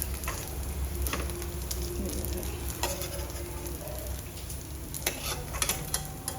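Papaya pakoras frying in hot oil with a steady sizzle, broken by several sharp clicks of a utensil against the pan.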